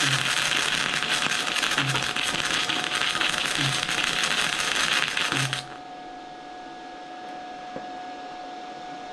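Flux-core arc welding bead (.030 flux-core wire on 1/4 inch steel plate) crackling and sputtering, then cutting off suddenly about five and a half seconds in. The arc is uneven because the wire is jumping around, for a cause the welder isn't sure of.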